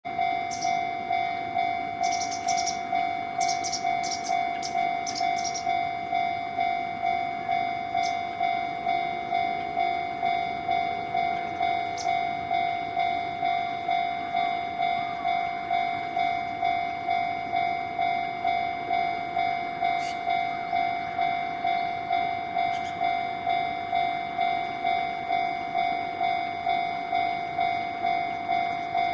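Japanese railway level-crossing warning bell ringing, an even electronic ding repeating a little under twice a second, signalling that a train is approaching.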